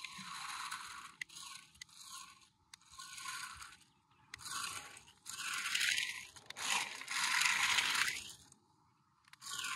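RC 6x4 military truck driving over loose gravel in several spurts, its tyres crunching and scraping on the stones, loudest in the second half as it comes close.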